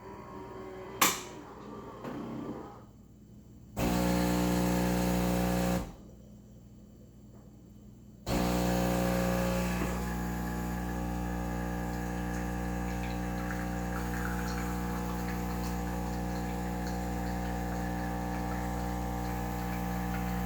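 Saeco Syntia super-automatic espresso machine running a brew cycle. There is a sharp click and a short rattle, then a loud steady motor hum for about two seconds that cuts off. After a pause of about two seconds, a steady pump hum starts about eight seconds in and keeps running.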